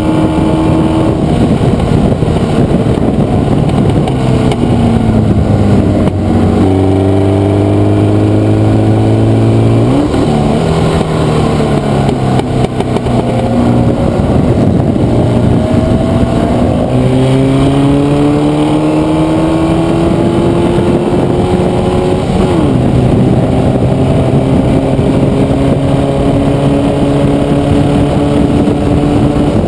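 Formula Vee race car's air-cooled Volkswagen flat-four engine heard onboard at race pace. The engine note climbs under acceleration and drops sharply at upshifts, about a third and three quarters of the way through, and falls when lifting off for corners.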